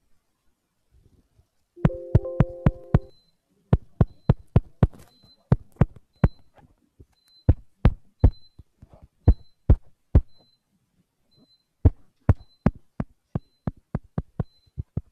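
A series of sharp, loud thumps in irregular runs of about two to three a second, with a brief pitched hum under the first run and a faint high beep repeating about every half second.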